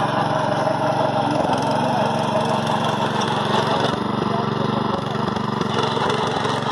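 Walk-behind power weeder's small air-cooled engine running steadily under load as its rotary tines till dry soil.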